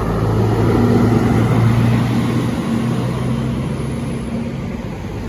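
Putra Pelangi intercity bus driving past: a steady low engine drone with tyre and road noise that swells to a peak about a second or two in, then slowly fades as the bus moves away.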